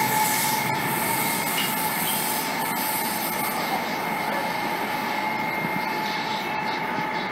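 Changchun CRH380CL high-speed electric train drawing away down the line, its running noise slowly fading, with a steady high hum from its Hitachi AC traction propulsion.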